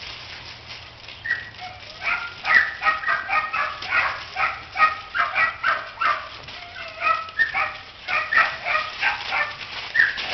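Dog barking, a long run of short high-pitched barks, about three or four a second, starting about a second in.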